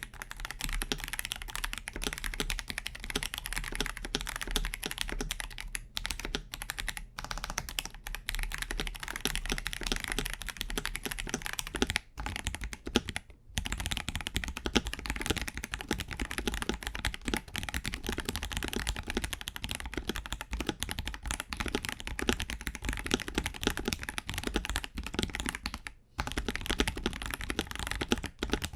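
Continuous fast typing on a KBD67 Lite R3 mechanical keyboard fitted with Akko Sponge tactile switches: a dense stream of keystroke clacks with a few brief pauses, the longest about 13 seconds in.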